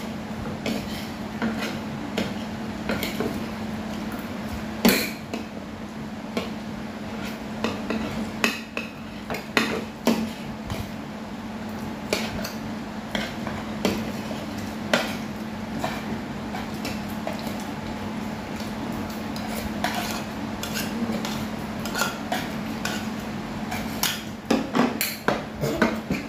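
Spoons and chopsticks clinking and scraping against ceramic bowls and plates during a meal, in scattered sharp clicks, with a quick run of clinks near the end. A steady low hum runs underneath.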